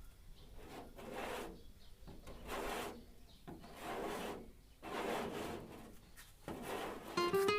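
Slow hand strokes rubbing or scraping on a car body panel during paint preparation, about one every second and a half. Music with guitar comes in near the end.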